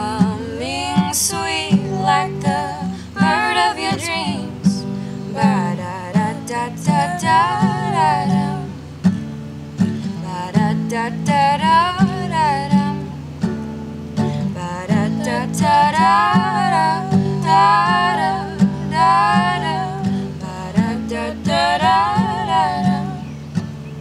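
Steel-string acoustic guitar strumming steady chords while a woman sings long, wavering melodic phrases over it.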